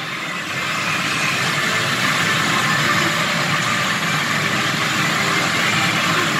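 Steady din of a pachinko parlour: steel balls clattering through many machines, merging into one dense noise.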